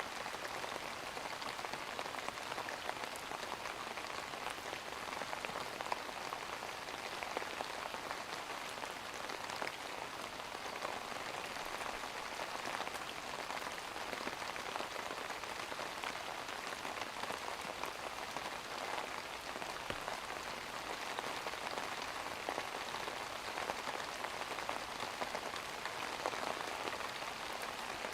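Steady rain falling and pattering on a surface, an even hiss with fine drop crackle.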